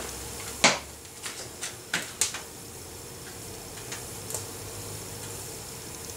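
A handful of short clicks and knocks in the first two and a half seconds, then two faint ticks around four seconds in, from things being handled at a wood stove: a knife and a pack of bacon being readied to fry. A faint steady hum lies underneath.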